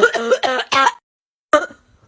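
A man coughing in a fit: about four hoarse, voiced coughs in quick succession, then another about a second and a half in.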